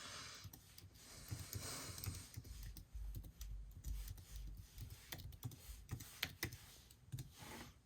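Typing on an Apple Magic Keyboard: a run of soft, irregular key clicks as an Apple ID is entered.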